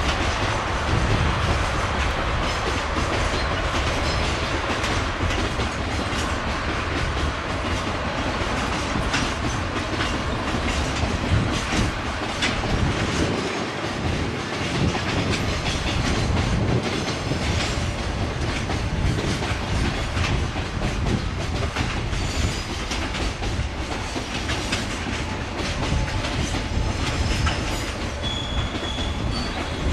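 Freight train wagons rolling on the rails with a steady clickety-clack of wheels over rail joints. A faint high wheel squeal appears near the end.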